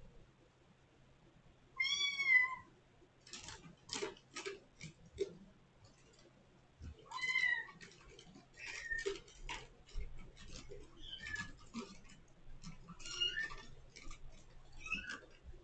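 Kittens meowing loudly and repeatedly at a closed door: high, arched mews about every two seconds, with light clicks and scratches between the calls.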